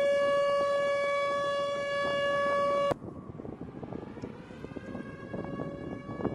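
Steady high-pitched jet turbine whine on an airfield flight line, a single held pitch with bright overtones. It cuts off abruptly about three seconds in, leaving a lower, uneven engine rumble with the whine returning faintly near the end.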